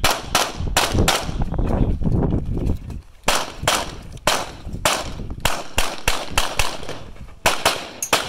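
Walther Q5 Steel Frame 9mm pistol fired in a rapid string of about twenty shots, many in quick pairs, each shot trailing off in echo, with a short break about three seconds in.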